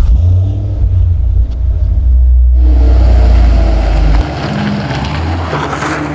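Car engine running loud and low just after starting, rising with a rev about two and a half seconds in; its deepest part drops away about four seconds in.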